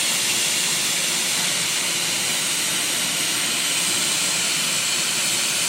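Steady hiss of compressed zero air flowing through a hot-gas plastic welder, used in place of nitrogen as the welding gas.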